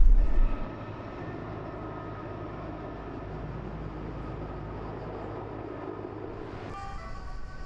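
Firefighting helicopter flying over, heard as a steady, even engine and rotor drone. Near the end the sound changes abruptly to a mix of steady whining tones.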